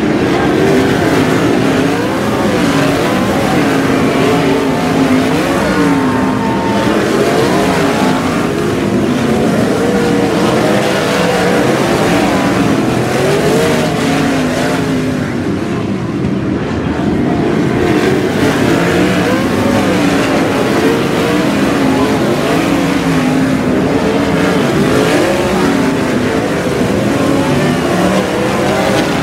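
A field of 360 sprint cars racing, their methanol-burning V8 engines rising and falling in pitch as they accelerate down the straights and lift for the turns, several engines overlapping at once.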